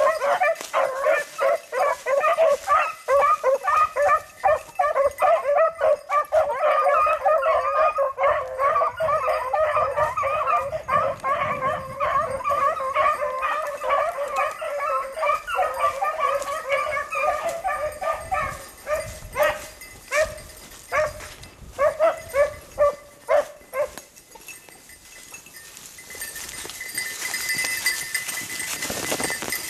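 A pack of beagles baying on a rabbit's trail, many voices overlapping in a continuous chorus. About two-thirds of the way through, the chorus thins to a few separate bays, and then it fades out. Near the end a steady, high-pitched hiss comes in.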